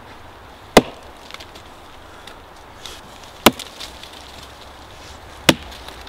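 Hatchet chopping into a hard chaga conk on a birch trunk: three sharp strikes, about two to three seconds apart, cutting a chunk loose.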